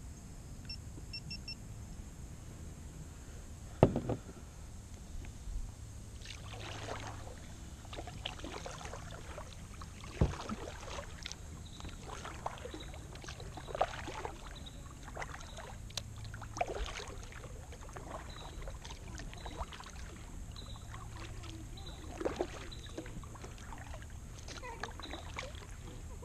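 Kayak paddling: a double-bladed paddle dipping and splashing stroke after stroke, with water running off the blades. Two sharp knocks against the kayak stand out, about four seconds in and again about ten seconds in.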